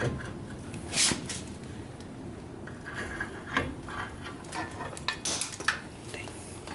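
Metal tools and hub parts clinking and clanking as they are handled, a scatter of sharp knocks with the loudest about a second in and a quick run of clinks around five seconds in.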